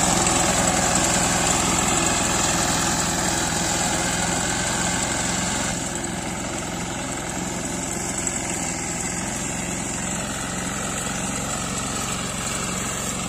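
Walk-behind rice reaper's small engine running steadily as the machine cuts standing paddy. It becomes fainter about six seconds in and then holds steady.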